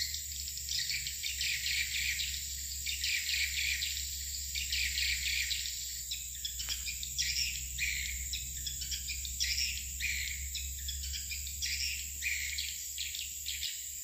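Swiftlets twittering around a swiftlet house: dense, rapid, overlapping chirps that go on without a break. A steady high whine runs underneath.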